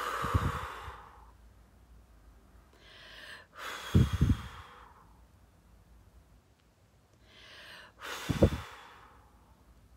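A woman drawing breath and blowing it out hard toward the microphone three times, about four seconds apart; each blow ends in a short low rumble of breath on the microphone.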